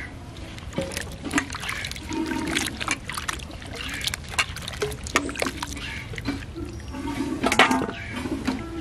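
Hands swishing and splashing cut taro root pieces in a steel bowl of water, washing them, with many irregular sharp clicks and splashes.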